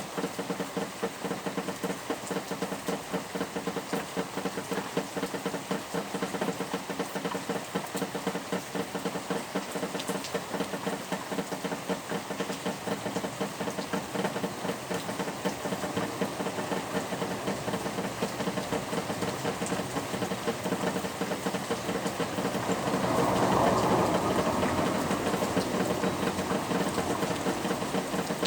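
Steady heavy rainfall, a dense continuous patter, swelling louder for a few seconds a little over twenty seconds in.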